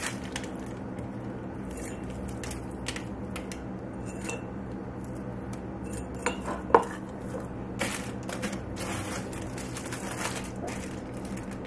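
Handling noises as roasted red peppers are taken from a plastic freezer bag and packed by hand into glass mason jars: scattered light clicks and clinks of glass, with one sharper clink a little past halfway, over a steady low hum.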